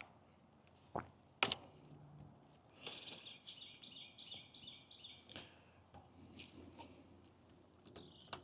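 A few light tool clicks, one sharp clack about a second and a half in, then a bird gives a quick run of high chirps lasting about two and a half seconds.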